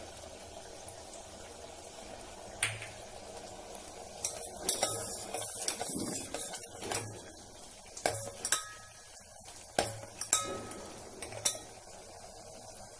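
Steel spoon clinking and scraping against a steel pot while sugar syrup is stirred: about ten scattered metallic clinks, a few seconds in and on through most of the stretch, over a faint steady hiss.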